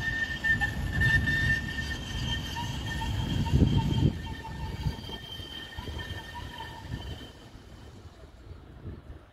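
Tram running on a curved track, its wheels squealing in a few steady high tones over a low rumble. The rumble swells about four seconds in, then the whole sound fades away toward the end.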